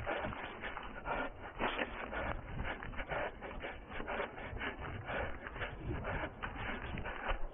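A runner's footsteps through grass and forest undergrowth, about three strides a second, with vegetation rustling and brushing against the legs.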